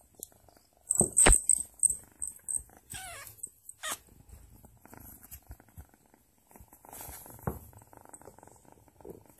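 Kitten purring close to the microphone, with knocks and rustles from its play; the loudest knock comes about a second in and another about seven seconds in.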